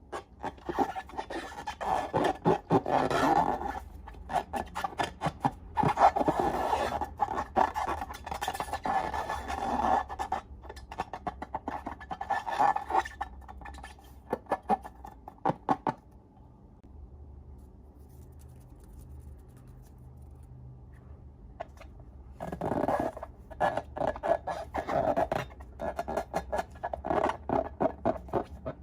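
Slime being mixed and squished by hand, making rapid sticky, wet clicks and crackles in bursts. It goes quiet for several seconds past the middle, then the squishing starts again.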